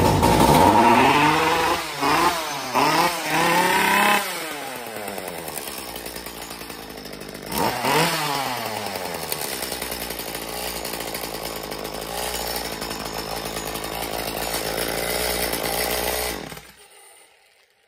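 Echo two-stroke chainsaw engine, bar and chain off, catching on the pull and running: it revs up and down several times in the first four seconds, revs again about eight seconds in, then runs steadily until it shuts off near the end. The formerly seized piston has been freed, and the saw runs again after being submerged in water.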